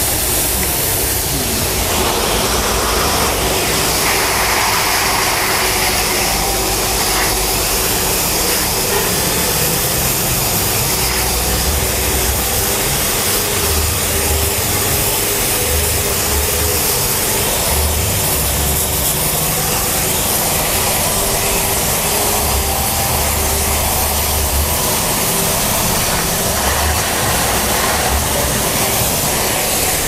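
High-pressure washer running, its water jet spraying with a steady hiss over the low drone of its pump motor.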